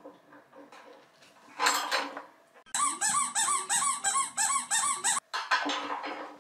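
Rhythmic squeaking from a plastic ride-on toy car as a toddler rocks it, about four squeaks a second for a couple of seconds, cutting off abruptly. It is framed by light clinking and rustling of metal grill-stand parts being handled.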